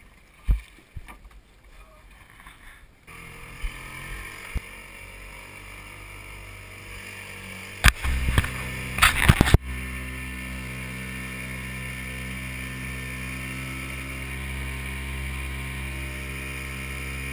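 Small outboard motor running steadily as it pushes an aluminium boat across the water, a low even hum that grows louder and steadier about ten seconds in. A few loud knocks and rubbing come just before that, from a hand on the camera.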